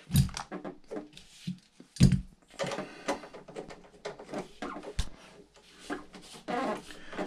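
Clicks and knocks from handling a small hand tool and the brass propeller on an RC boat's prop shaft, with a louder knock about two seconds in and a sharp click about five seconds in.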